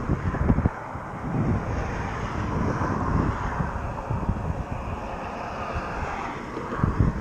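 Wind buffeting the microphone in gusts, over the drone of a passing engine that swells and fades.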